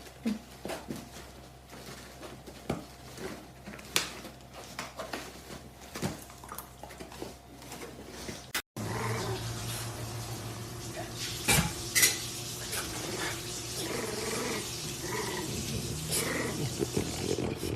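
Scattered clicks and clattering knocks. After a sudden cut, a dog growls amid louder knocks and rustling.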